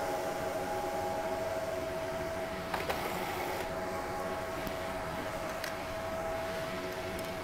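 Steady machinery hum with a held steady tone, and a couple of sharp clicks about three seconds in.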